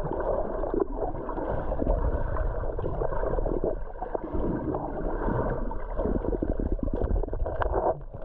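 Water sloshing and gurgling close to a muffled microphone, with many small irregular splashes and knocks.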